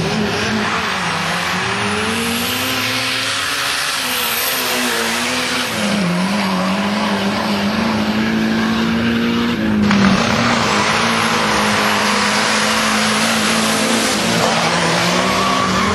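Drag-racing car engines running at high revs, their pitch swelling, dipping and climbing again. About ten seconds in the sound changes abruptly to another engine.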